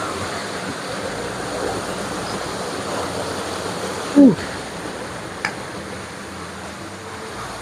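Shallow stream water running over rocks, a steady rushing. About four seconds in, a brief voice-like sound falling sharply in pitch cuts through it.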